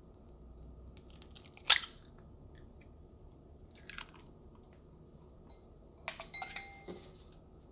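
A hen's egg being broken open over a glass measuring cup of flour. There is one sharp crack-like click about two seconds in, the loudest sound, then softer clicks, and near the end a quick run of small clicks and short glassy rings.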